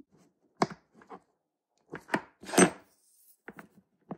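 Stainless steel watch bracelet being handled on a workbench: a series of short knocks and clinks from its links, with a longer scraping stroke about two and a half seconds in.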